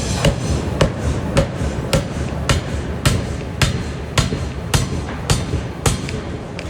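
Pneumatic forging power hammer striking a workpiece in a steady rhythm, a little under two blows a second, stopping near the end.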